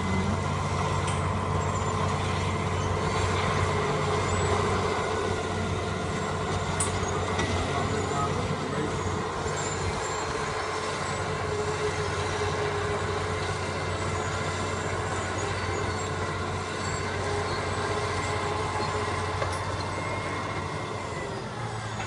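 Caterpillar D8 bulldozer's diesel engine running steadily under load as the dozer pushes rock and dirt with its blade, with a few brief knocks along the way.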